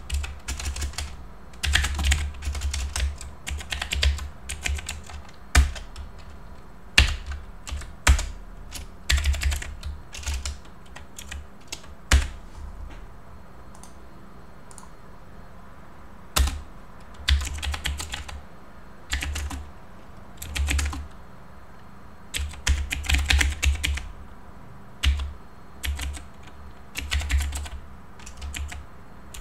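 Typing on a computer keyboard in bursts of quick keystrokes, each burst with a dull thud under the clicks, and a pause of about four seconds about halfway through.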